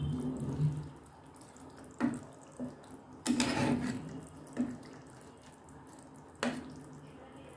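Red silicone spatula stirring and ladling thin curry gravy over fish in a nonstick pan: liquid sloshing and splashing, with a few short knocks of the spatula against the pan and a longer slosh about three seconds in.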